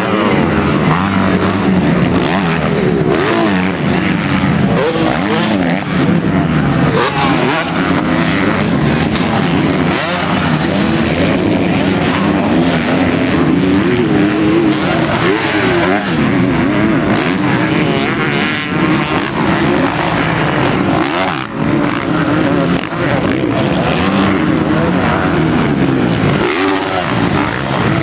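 450-class motocross bike engines racing, revving up and down in overlapping waves as riders accelerate and shift around the track.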